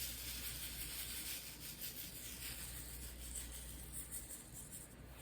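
Faint rubbing and light handling noise over a steady low hum.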